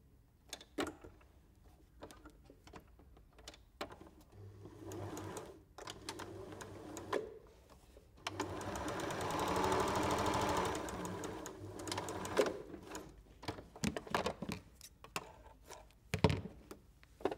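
Janome electric sewing machine stitching a seam in short runs, with a brief run about four seconds in and a longer, louder, fast-stitching run from about eight to eleven seconds in. Scattered clicks and knocks come between the runs, with a heavier knock near the end.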